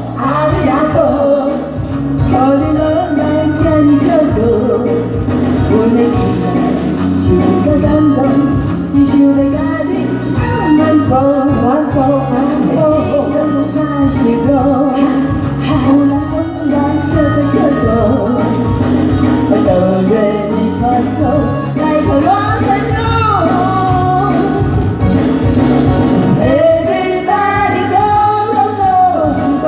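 Women singing into microphones through a PA system over amplified backing music.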